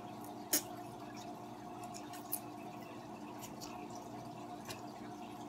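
Quiet eating of blue crab: a few sharp clicks as the shell is picked apart and the meat chewed, the loudest about half a second in and another a little after two seconds, over a steady low hum.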